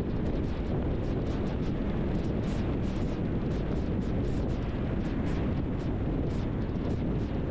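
Steady wind and road noise from a moving car, with wind buffeting the camera's microphone. Frequent short crackles run through it.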